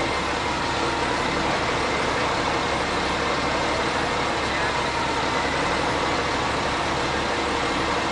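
A large engine idling steadily, with a constant hum under a broad, even rumble.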